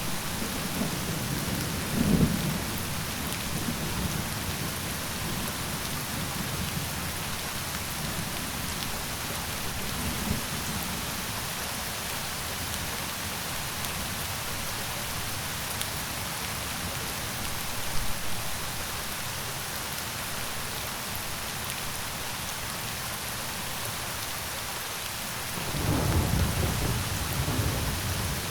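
Steady rainfall hissing, with low rolls of thunder: a short one about two seconds in, fainter ones later, and a longer rumble near the end.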